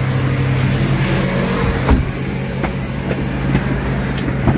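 A car engine running at idle with a steady low hum, a heavy thump about two seconds in, and several lighter knocks and clicks after it, as from car doors and handling around the car.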